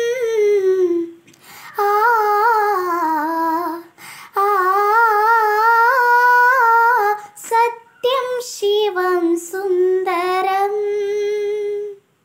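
A girl singing solo and unaccompanied, drawing long vowel notes out with vibrato in a melismatic line of a Hindi film song. She breaks for breath about a second in and again near four seconds, sings a run of short notes about three quarters of the way through, and ends on one long held note.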